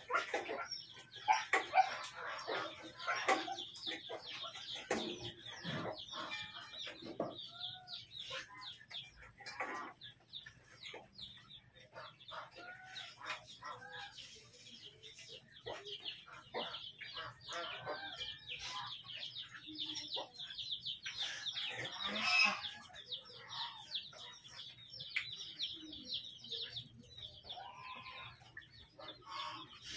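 Chickens clucking, with a dense run of high peeping from chicks, and scattered clatters and knocks of bowls being handled.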